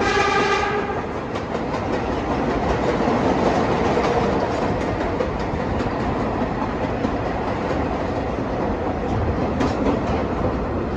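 Vintage subway train running along the track, a steady rumble with clicking from the rail joints. The train's horn is still sounding at the start and cuts off about a second in.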